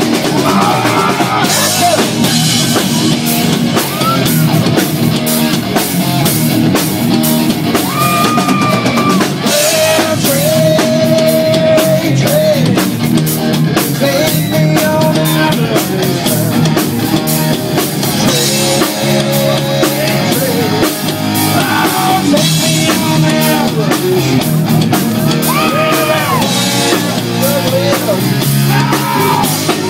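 Live rock band playing: a drum kit and electric guitar, with a lead melody from the singer at the microphone, held and bending notes over the band.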